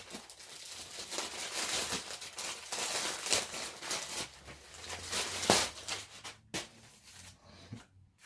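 Packaging crinkling and rustling as it is handled, with one sharper crackle about five and a half seconds in. It fades to quieter rustling near the end.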